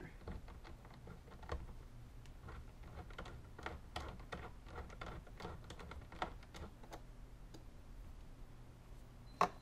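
Light, irregular clicks and taps of a 92 mm aluminium throttle body and its bolts being handled and fitted loosely onto an intake manifold, with a sharper click near the end. A steady low hum runs underneath.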